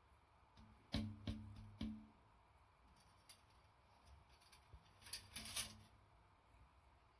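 Light metal clinks and rattles from handling a folding steamer fire pit and its grill net with clip-on stoppers: three sharp clicks with a short ring about a second in, then a quick run of clinking and scraping around five seconds in.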